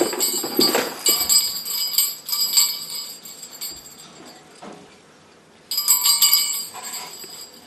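Small jingle bells jingling in shaken bursts, stopping for a moment and starting again near the end.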